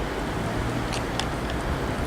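Class 387 electric multiple unit arriving at the platform, a steady low running hum and rumble, with a few short high squeaks about a second in.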